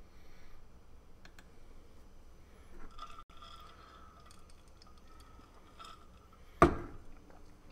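Quiet room with small clicks and handling noise while a person takes a drink, then one sharp knock near the end as the drinking glass is set down on the table.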